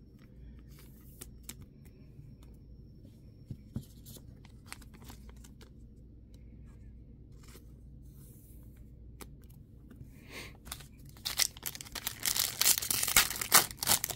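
A foil Topps Chrome trading-card pack being torn open and crinkled, loud and crackling, starting about eleven seconds in. Before that, only faint taps and rustles of cards being handled.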